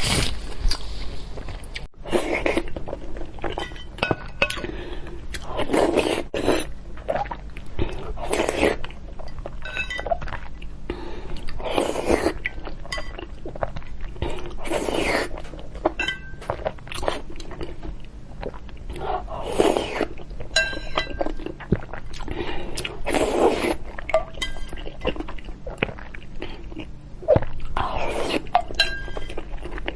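Close-miked eating: repeated chewing and mouth sounds from mouthfuls of braised eggs, with a spoon and chopsticks clinking now and then against the bowl.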